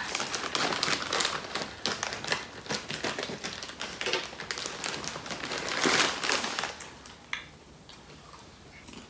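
Plastic snack bag of Candy Pop popcorn crinkling and rustling as hands rummage in it for pieces. It is busiest about six seconds in, then dies down.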